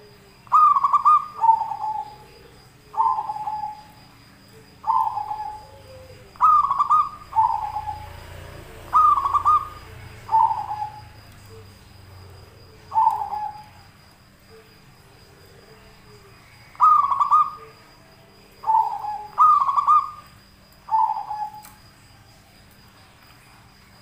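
Caged yellow-vented bulbul calling: about a dozen short falling notes, many in quick pairs, with pauses of a second or more between groups.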